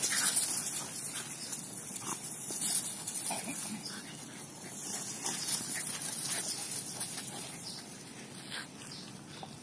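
A Rottweiler and two smaller dogs wrestling in play: short growls and grunts scattered over paws scuffling on sandy ground, busiest in the first few seconds.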